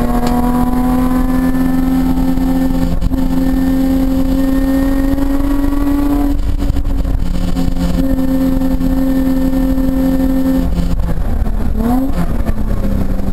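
Nissan 350Z track car's V6 engine heard from inside the cabin, pulling hard with its note climbing steadily, then dropping as it shifts up about six seconds in. Near the end it comes off the throttle and gives a quick rising rev blip on a downshift while braking for a corner.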